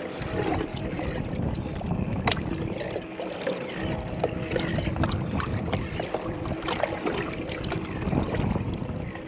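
Water lapping and splashing against the plastic hull of a Hobie fishing kayak, with scattered small knocks and clicks from gear on board.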